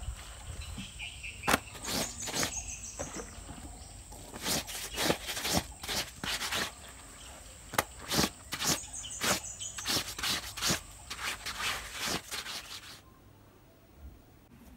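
Hand laundry: a plastic scrub brush scrubbed in quick runs of strokes over a soapy, wet cloth on a wooden plank, over a steady high insect drone and a few bird chirps. Near the end it cuts to quieter room tone.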